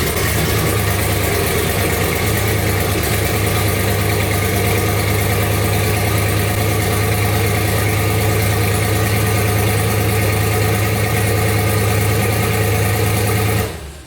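Turbocharged LS V8 in a Ford Ranger idling loud and steady through an open, straight 3-inch dump pipe off the turbo, then shut off shortly before the end.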